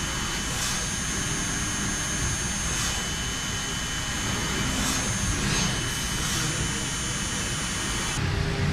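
WFL M60 CNC mill-turn machine cutting a steel shaft with a milling tool: a steady mechanical hum and cutting noise with thin, high, steady whines. Near the end the high whines stop.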